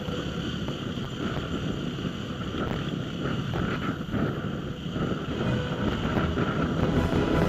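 Single-cylinder four-stroke dual-sport motorcycle engine running at low speed while the bike crawls over rough rock. Wind buffets the microphone, and there are short knocks from the bumpy ground.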